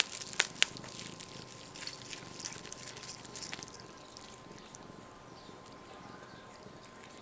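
Bubble wrap crinkling and crackling as a cat bites and paws at it, with a few sharp snaps in the first second, then smaller crinkles that die away about halfway through.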